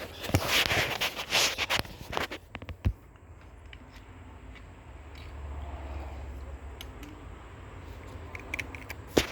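Door handle and lock hardware being handled: scraping and rattling for about two seconds, a few sharp metal clicks, then quieter fiddling with a low rumble.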